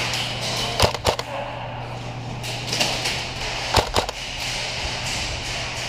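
Airsoft gunfire: sharp pops in two quick pairs, about a second in and again near four seconds in, over a steady background hiss and hum.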